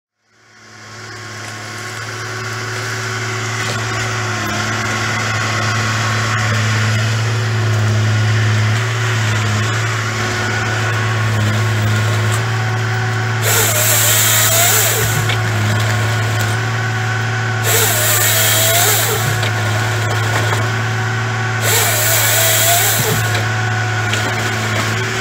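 Fabtek FT-133 harvester's diesel engine running steadily under hydraulic load, fading in over the first two seconds. Three times in the second half its processing head's saw cuts through a pine stem, each cut a loud hissing buzz of about two seconds over the engine, as the stem is bucked into logs.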